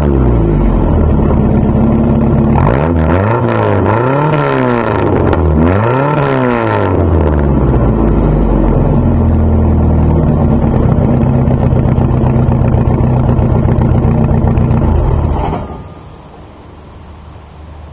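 1986 Jeep Comanche's 2.5-litre four-cylinder engine, warm, exhaust through a glasspack muffler, revved in a few quick blips and then idling. The engine cuts off about fifteen seconds in.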